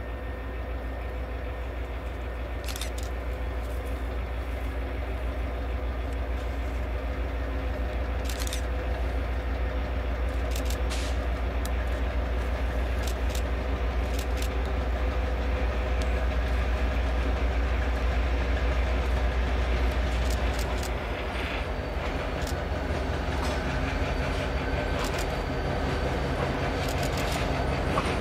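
EMD GP38 diesel-electric locomotive with a two-stroke V16 engine approaching at low speed. The engine runs with a steady low drone that slowly grows louder, with scattered sharp clicks over it.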